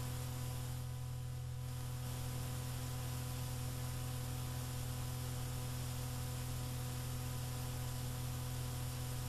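Steady low electrical hum under an even hiss: the recording's own noise floor, with no music or voices. The hiss thins briefly about a second in.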